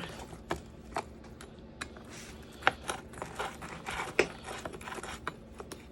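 Scattered light metal clicks and taps of a wrench working on the chainsaw's bar nuts as they are snugged up, with two sharper clicks near the middle.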